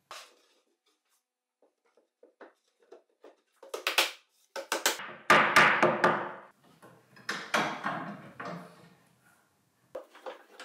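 Plywood panels being fitted together in a glue-up: a few light taps, then scraping and knocks of wood on wood as a top panel is set in place, the loudest about halfway through. Near the end come the clicks and knocks of bar clamps being set on the module.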